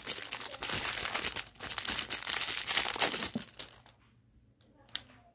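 Plastic bag crinkling and rustling as a mold packed in it is handled, for about three and a half seconds, followed by a quieter stretch with a single click near the end.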